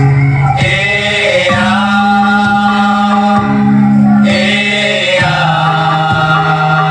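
Dance accompaniment music with sustained sung or chanted vocal lines, held notes shifting pitch every second or two.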